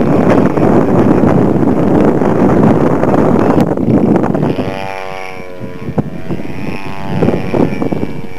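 Wind buffeting the microphone for the first half. From about halfway, a radio-controlled model airplane's motor runs in the air as a steady pitched drone that wavers slightly in pitch.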